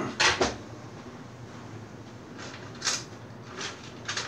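Handling noise as a wireless access point circuit board is moved and repositioned by hand: one louder scuff right at the start, then three short, softer scuffs near the end.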